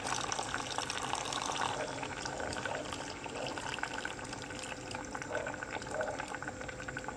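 Fermented-fish broth poured steadily from a bowl into a pot of boiling fish curry, the liquid splashing into the bubbling broth.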